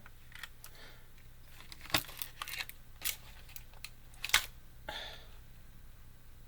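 Action figure packaging being handled: scattered sharp clicks and crinkles, a few at a time, with the loudest click about four seconds in.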